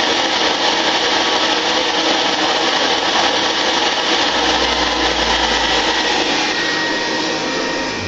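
A 1958 Hoover Convertible Model 31 upright vacuum cleaner running, its motor giving a loud, steady whir that eases off slightly near the end.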